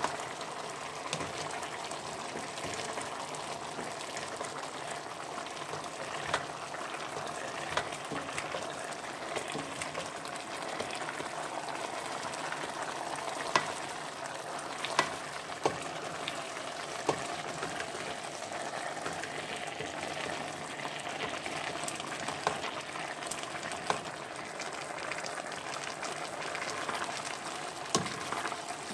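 Chicken drumstick and carrot stew cooking in a stainless steel pot with a steady sizzle. A plastic spoon stirring it knocks against the pot a few times, mostly around the middle and near the end.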